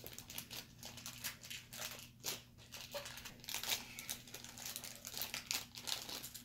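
Plastic packaging crinkling as a small surprise packet of L.O.L. Surprise doll accessories is unwrapped by hand: a steady run of quick crackles.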